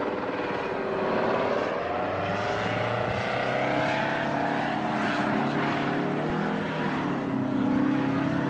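V-22 Osprey tiltrotor's engines and proprotors running, their pitch wavering slowly up and down as the aircraft rocks and rolls out of control.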